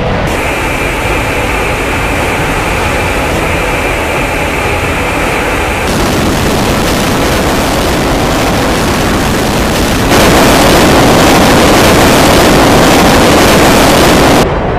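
Fighter-jet engine roar with a steady high whine for the first six seconds, turning into a broader rushing noise that gets louder from about ten seconds in and drops off abruptly just before the end.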